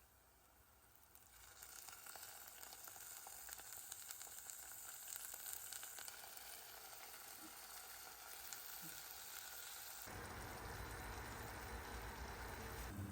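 Food frying in a hot pan: a quiet sizzle with fine crackles that comes up about a second and a half in. The sound changes near the end, when a lower sound joins the sizzle.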